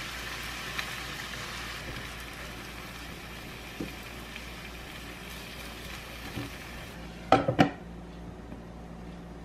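Chicken and onions sizzling in a nonstick frying pan, with a spoon stirring and knocking lightly against the pan. Near the end, a glass pan lid is set down on the pan with two quick sharp clinks.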